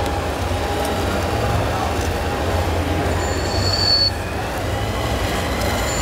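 Radio-controlled scale Caterpillar crawler bulldozer pushing a load of soil, its tracks and drive running steadily with a low hum, and a brief high squeal about three seconds in.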